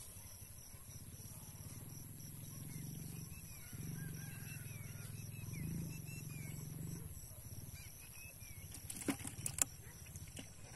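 Quiet outdoor ambience: a steady low rumble with faint, scattered bird chirps, then a short cluster of sharp clicks about nine seconds in as fingers handle the hook and bait.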